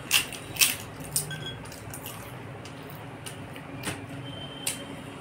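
Fingers working food on a paper plate, with about six sharp clicks and clinks, the loudest three in the first second or so and two more near the end; a couple of them ring briefly.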